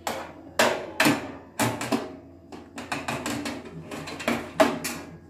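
Chrome wire oven rack clattering against the metal cavity of an oven-toaster-grill as it is fitted in and slid along the rack guides: a string of sharp metallic knocks, about two a second, each with a brief ring.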